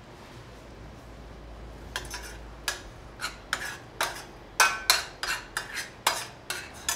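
Short, sharp scrapes and clinks of utensils or crockery in a kitchen, about a dozen at an uneven pace of roughly two a second, starting about two seconds in.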